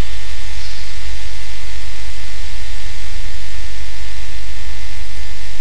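Loud, steady electrical mains hum with an even hiss and a few faint steady whine tones, unchanging throughout.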